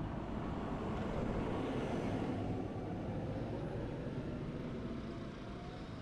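Riding noise from a GoPro on a moving recumbent trike: wind buffeting the microphone over a low road rumble. It swells about a second in and eases off toward the end.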